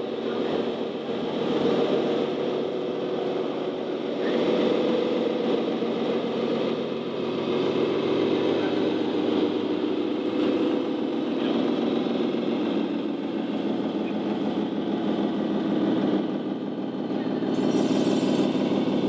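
RC model truck's sound module playing a diesel truck engine running steadily at low revs, its pitch shifting slightly partway through, with a short hiss near the end.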